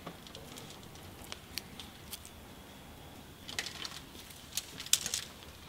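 Bonsai wire being wrapped around a juniper branch: faint rustling of the foliage with scattered small clicks, thickest from about three and a half seconds in, the sharpest click near the five-second mark.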